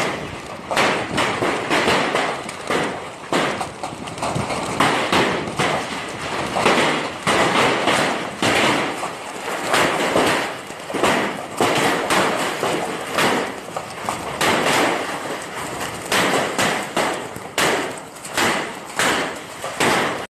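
Heavy hailstorm: hailstones pelting the ground in a dense, irregular stream of thuds and cracks over a steady hiss, swelling and easing in waves about every second.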